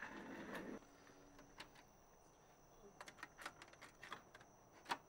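A cassette tape handled and loaded into a dual-well stereo cassette deck: a brief rustle, then a scatter of small, sharp plastic clicks as the cassette goes into the well and the door and buttons are worked. The loudest click comes near the end.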